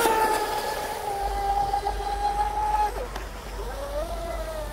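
Electric RC mono-hull speedboat running flat out: a steady high whine from its brushless motor and drive. About three seconds in the pitch drops sharply as the throttle comes off, then rises and wavers as the throttle is worked again.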